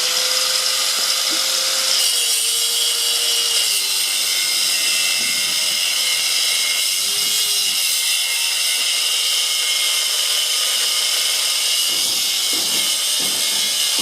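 Electric angle grinder, run off a pedal-powered generator, cutting into a metal bike lock: a steady, loud grinding hiss over the motor's whine, which sags slightly a couple of times.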